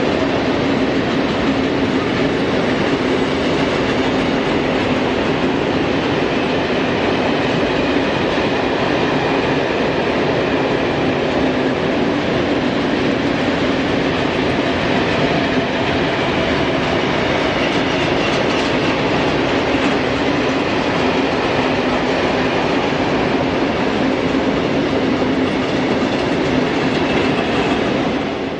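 Long freight train of tank wagons rolling past, its wheels and wagons making a steady, loud rolling rumble with an even hum underneath.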